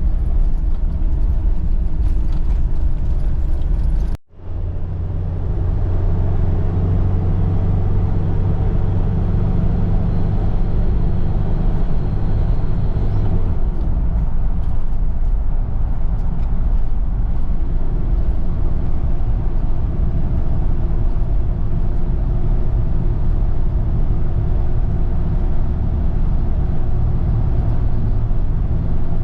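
Steady low rumble of a moving vehicle's engine and road noise, with a faint constant hum; the sound cuts out for a moment about four seconds in.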